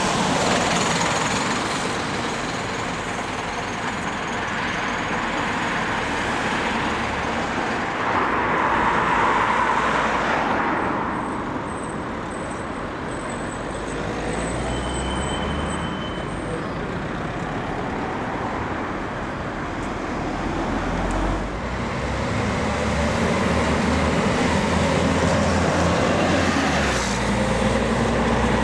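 Buses and other road traffic passing close by: engines running and tyres hissing on a wet road, swelling as each vehicle goes past, loudest about nine seconds in.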